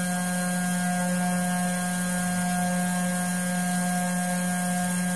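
Electrically driven gyroscope rotor spinning at constant speed, a steady hum with several fixed tones over a light hiss.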